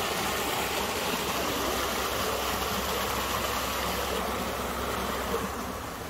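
Creek water rushing steadily over a small rocky cascade. The higher splashing fades a little about four seconds in.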